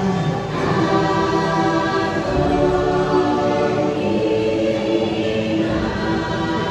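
A choir singing long held notes over music, part of the dark ride's atmospheric soundtrack. The chords change every second or two.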